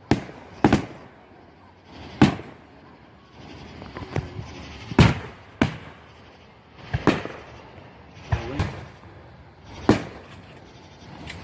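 Fireworks going off: about nine sharp bangs at irregular intervals, some with a short echo after them.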